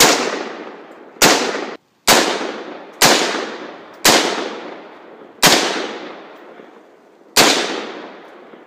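AR-15 rifle fired semi-automatically: seven single shots at uneven gaps of about one to two seconds, each report trailing off in a long echo.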